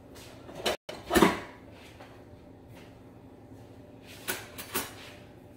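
Kitchen cupboard being opened and shut while a bowl is taken out: a knock about a second in, then two sharp knocks about half a second apart near the end.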